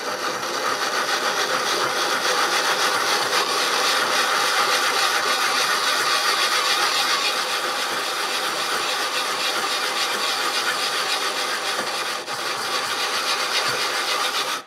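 Metal hand-plane frog being rubbed in rapid back-and-forth strokes on an oily abrasive slurry over plate glass: a steady gritty scraping as it is lapped, the even abrasion showing whether the frog is flat. It stops abruptly near the end.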